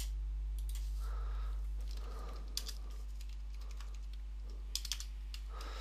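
A few scattered computer keyboard keystrokes, with a short cluster of them near the end, as text in a field is deleted and retyped. A steady low hum runs underneath.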